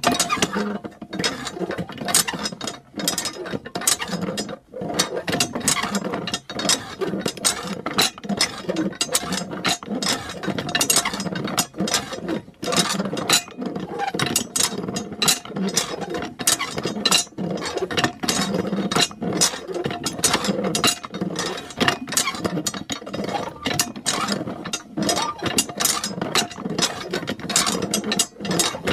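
Miniature hand pump's mechanism clicking and rattling rapidly and irregularly as it is worked to push water out of its spout.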